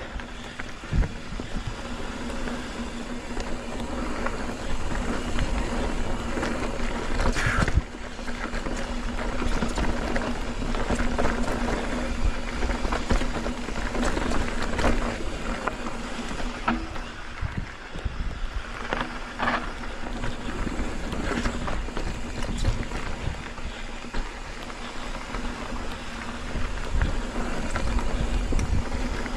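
A mountain bike rolling over a dirt trail, with wind rumbling on the microphone and scattered knocks and rattles from the bike.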